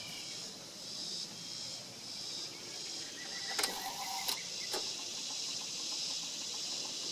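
A high-pitched insect chorus pulsing steadily about once a second, with a few sharp clicks a little past halfway.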